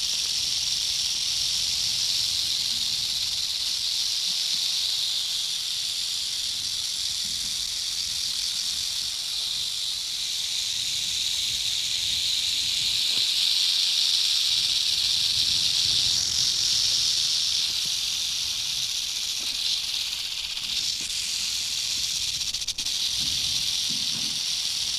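Rattlesnake buzzing its tail rattle: a continuous high buzz that holds steady and swells slightly about halfway through.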